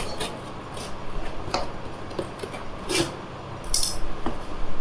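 Utility knife cutting open a cardboard package, with scattered scratchy clicks and a longer scraping rasp about four seconds in.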